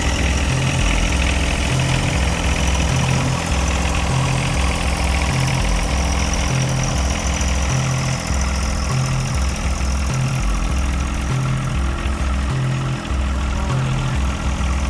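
John Deere 1025R subcompact tractor's three-cylinder diesel engine running steadily while the tractor is driven at low speed.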